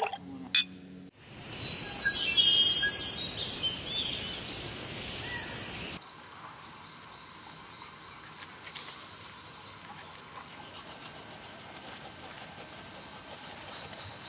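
Birds chirping and trilling for a few seconds, then a quieter, steady outdoor background with a faint, high, steady tone and an occasional short chirp.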